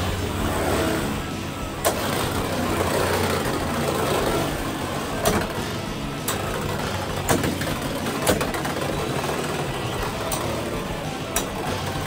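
Two Beyblade X tops, Viper Tail and Knight Lance, spinning and whirring across the stadium floor, with sharp clacks about seven times as they collide.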